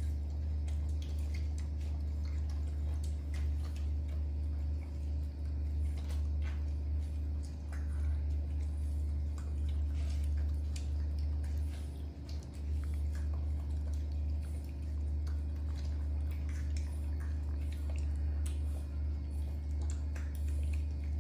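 Two young macaques eating ripe mango slices, with chewing and many small scattered clicks over a steady low hum.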